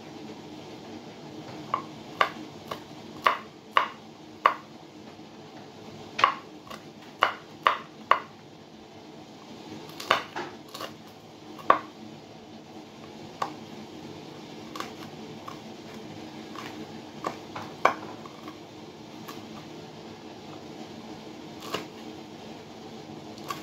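Kitchen knife slicing chilli peppers on a wooden cutting board: sharp taps of the blade hitting the board, in quick runs in the first half, then more scattered single strokes.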